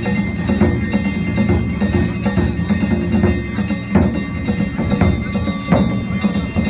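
Danjiri festival float music: drum beats under the steady clanging and ringing of metal hand gongs, with sharper strikes standing out about four and six seconds in.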